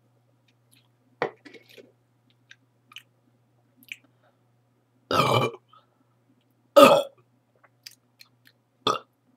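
A girl burping: two longer burps about five and seven seconds in, the second the loudest, then a short one near the end, with a smaller sound about a second in and faint mouth clicks between them.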